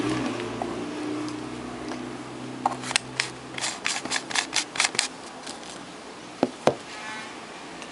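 Sharp plastic and metal clicks from a dynamic microphone's handle being handled and fitted back together during reassembly: a quick run of about ten clicks, then two louder knocks a little later. An engine hum fades out in the first second or two.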